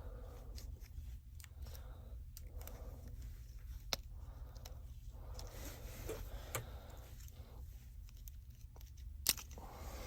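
Small hand tools scraping and clicking against a smartphone's internal parts as the charging port assembly is pried out, with two sharper clicks, one about four seconds in and one near the end, over a low steady hum.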